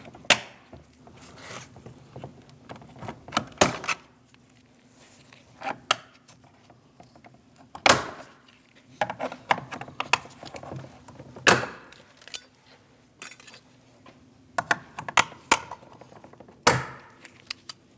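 Plastic retaining clips in a car door's weather stripping being popped out one after another with a pick: irregular sharp clicks and light clinks, several seconds apart.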